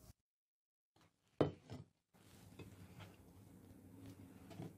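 Mostly quiet: one short knock about a second and a half in and a fainter one just after, then faint room hum with a few light taps.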